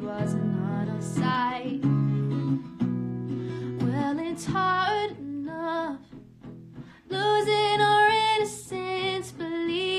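A woman singing a slow song to her own acoustic guitar accompaniment. The voice softens just before seven seconds in, then holds one long note.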